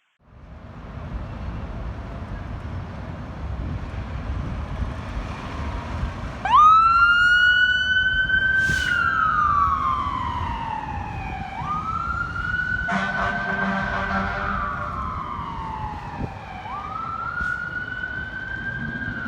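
A fire engine's low engine rumble. About six seconds in its siren starts wailing, each cycle jumping up and then sliding slowly down, about every five seconds. About two-thirds of the way through, a blast of the engine's air horn sounds over the siren for about a second and a half.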